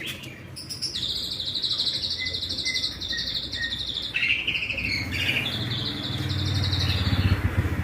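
A bird singing rapid, pulsing trills: one long trill from just after the start lasting about three seconds, then shorter phrases. A low rumbling noise grows underneath and is loudest near the end.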